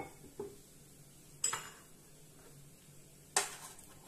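Kitchen bowls and a wok knocking and clinking on a countertop and stove as they are handled. There are two light knocks at the start, then a sharper clink about a second and a half in and another near the end.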